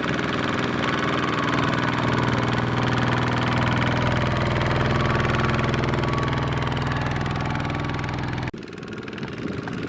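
Single-cylinder diesel engine of a Kubota-powered mini tractor running steadily, then cutting off abruptly near the end, with a quieter, different noise after.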